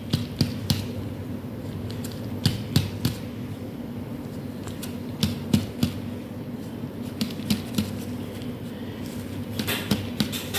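Scattered light clicks and taps at uneven intervals over a steady low hum: handling noise as a stethoscope is moved over a patient's chest during a lung examination.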